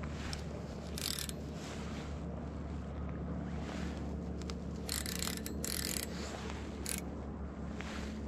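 Steady low rush of river water around a wading angler, broken by several short hissing swishes about a second in and again around five, six and seven seconds in.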